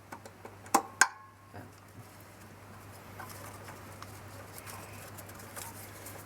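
Two sharp metallic clicks about a second in, the second ringing briefly, followed by light scratching and small ticks: hand work with tools on the lawnmower engine's magneto while setting its gap to the flywheel.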